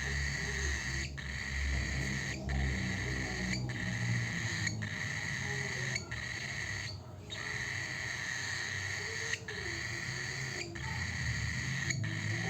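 Low, wavering bird calls, hoot- or coo-like, over a steady high-pitched drone that breaks off briefly about once every second or so.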